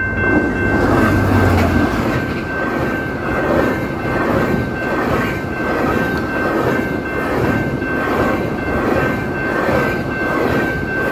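GO Transit express passing at about 120 km/h behind two diesel locomotives, an MP40 and an F59PH. The locomotives' engines are heard in the first two seconds, then the steady clatter of bilevel coach wheels with a regular beat. The level-crossing signal bells ring over it.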